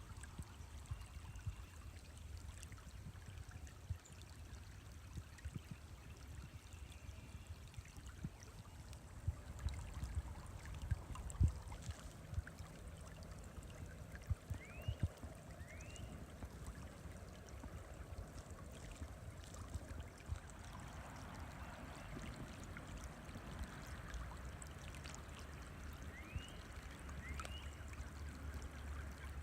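River water flowing and trickling steadily, with a low rumble underneath. A few knocks come around the middle, and two pairs of short rising chirps come later on.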